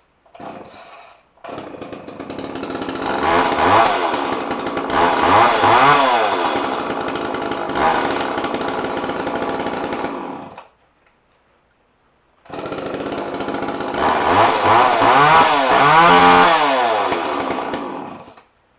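Homelite XL two-stroke chainsaw running and being revved up and down several times, on a test run to check the chain's tension. It stops about ten seconds in, starts again about two seconds later, is revved again and shuts off near the end.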